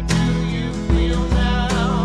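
Background music: a song with a singing voice over guitar and a steady beat.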